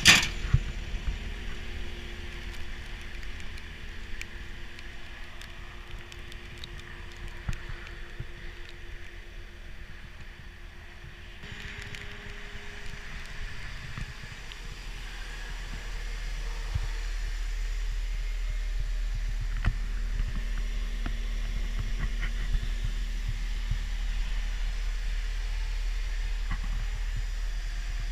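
Cat 236D skid steer's diesel engine running at a steady idle, a low hum that grows louder about halfway through and then holds, with scattered clicks and knocks from handling as someone climbs into the cab.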